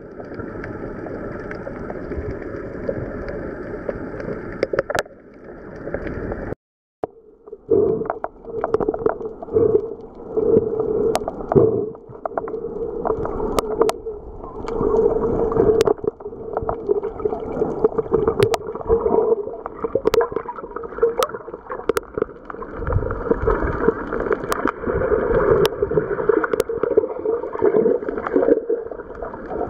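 Muffled underwater sound picked up by a submerged camera: water sloshing and gurgling, with a steady hum and scattered sharp clicks. The sound drops out for a moment about six and a half seconds in.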